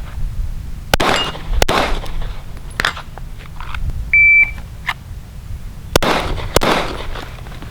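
Two 9mm pistol shots, then a single short electronic beep from a shot timer, the start signal, followed about a second and a half later by two more quick shots.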